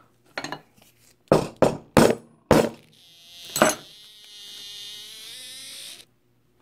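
A handful of sharp knocks and clicks from handling the knife and handle parts on a metal-covered workbench, then the camera itself making a weird noise: a thin buzzing whine for about three seconds, rising slightly in pitch, that cuts off abruptly into dead silence.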